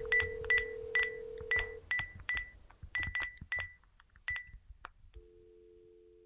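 Telephone sounds: about a dozen short, high, clicking key-press beeps in a quick irregular run over a steady low tone that stops after about two seconds. The beeps thin out and stop, and about five seconds in a steady two-note telephone dial tone begins.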